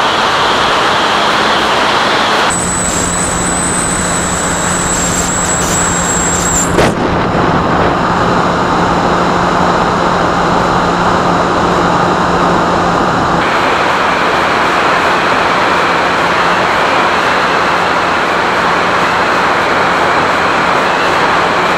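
Steady rush of wind and electric pusher-motor and propeller noise picked up by the onboard camera of a Skyhunter RC plane in flight. A thin high whine sits on top of it from about two and a half to seven seconds in, and the sound changes abruptly around seven and thirteen seconds in.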